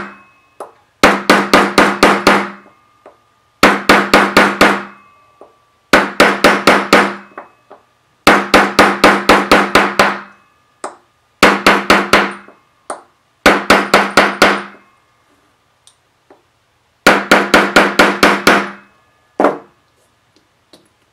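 Brass hammer tapping the end of a wooden dapping punch, doming a thick-gauge aluminum stamped blank in a wooden dapping block. There are seven quick runs of about five or six taps each, with short pauses between them, and one last single tap near the end. Each tap rings briefly.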